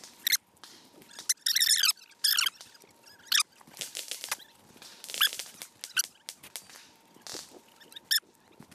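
Footsteps on gravel with a short, high squeak every second or so, like creaking gear on a walking person.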